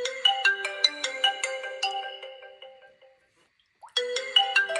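Lenovo A2010-a incoming-call ringtone: a chiming melody of bell-like notes that fades out about three seconds in, then starts again loud just before the end.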